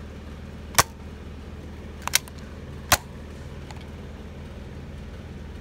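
Nerf Alphastrike Optic QS-4 spring-plunger dart blaster being fired: a sharp pop about a second in and another near three seconds in, with a quick double click between them, over a steady low hum.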